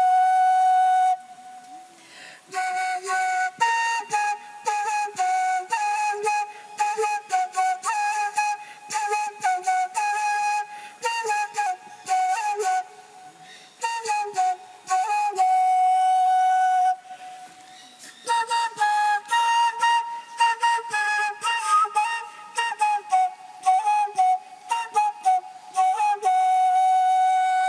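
A solo flute plays a single melody line in short, repeated phrases, with a pause about two seconds in and another about seventeen seconds in.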